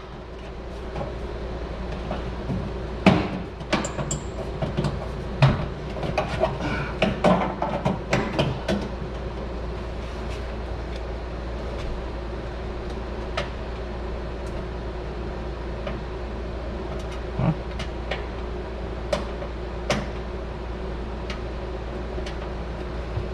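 Scattered knocks, clicks and clatter of range hood parts being handled and fitted into place, busiest in the first several seconds and sparser later, over a steady low hum.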